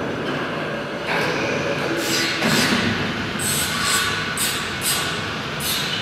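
Overhead travelling crane running along its runway rails: a steady rolling rumble of steel wheels on rail, with higher wheel-squeal tones setting in about two seconds in.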